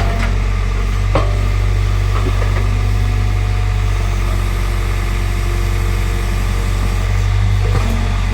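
Excavator's diesel engine running steadily with a low hum, with a few short clanks from the machine, one about a second in and one near the end.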